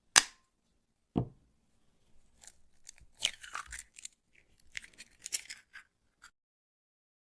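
Egg being cracked: a sharp knock, then a duller, lower knock about a second later, followed by a few seconds of irregular crackling of the shell.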